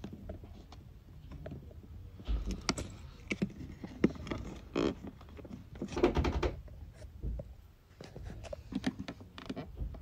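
Scattered clicks and knocks of hands working at a plastic weatherproof outlet box and its cables, with a few louder clusters of handling noise about two, six and nine seconds in.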